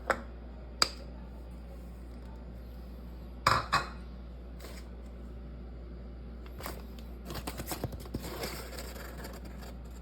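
Kitchen utensils and dishes clinking and tapping: two sharp clicks at the start, a louder double clack a few seconds in, then a run of light, quick taps and scrapes near the end.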